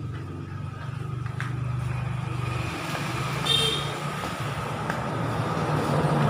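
Steady low rumble of a motor vehicle engine running nearby, with a brief high-pitched tone about three and a half seconds in and a couple of faint clicks.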